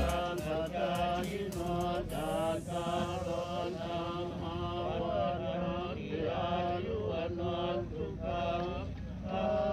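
Chanting in short melodic phrases, with brief breaks between them.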